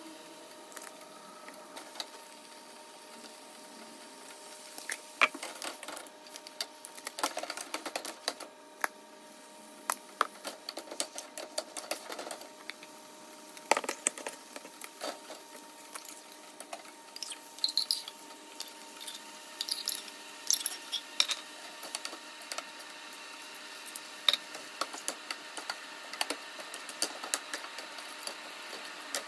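A metal slotted spoon scraping and clinking against a stainless steel skillet as diced chicken is stirred, in irregular clicks and scrapes, over a faint steady hum.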